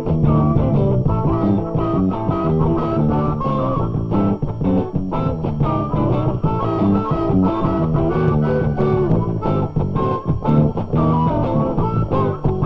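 Rock music led by guitar, with bent notes over a bass line and a steady beat.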